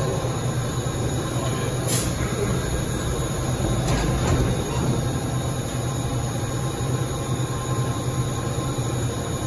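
Vintage New York City subway train standing at the platform with a steady low hum. About two seconds in there is a sharp bang as the doors slam shut, and later the train starts to pull out.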